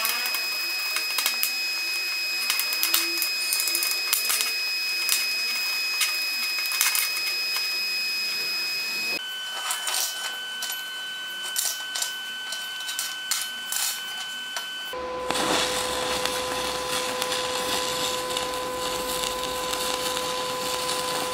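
Stick-welding arc with a nickel-iron electrode on cast iron: a steady crackling hiss. A thin steady whine runs alongside and drops to a lower pitch twice, about 9 and 15 seconds in.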